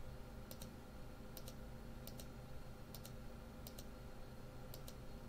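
Faint clicks at a computer, about six pairs of quick clicks roughly a second apart, over a low steady hum.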